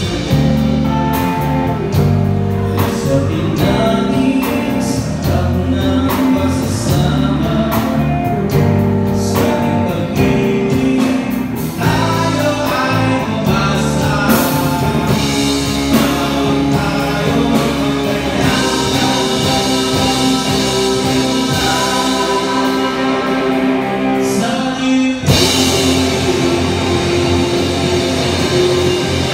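Three-piece rock band playing live: electric guitar, electric bass and drum kit, with a male lead vocal sung by the bassist. A sharp hit about 25 seconds in leads into a fuller section.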